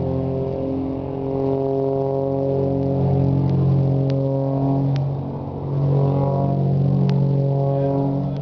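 Aerobatic display plane's engine droning steadily overhead, its pitch shifting in small steps as the plane manoeuvres.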